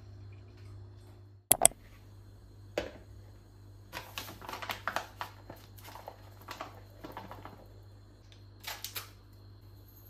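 Two sharp clicks about a second and a half in, then the rustle and crinkle of a plastic flour bag as flour is poured into a plastic mixing bowl. Another short rustle near the end, from a yeast sachet being shaken out.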